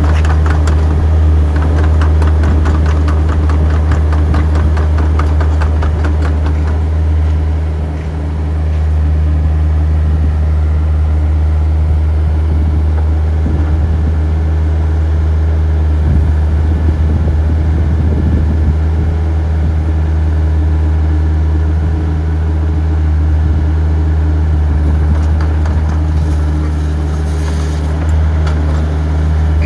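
Diesel engine of a Terex TC65 midi excavator running steadily with a deep, even hum, dipping briefly about eight seconds in.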